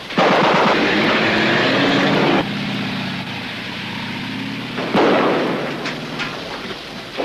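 Battle sound effects from a war drama: a loud blast with a rumble that starts suddenly and cuts off after about two seconds, a low steady hum under it, then a second blast about five seconds in that dies away.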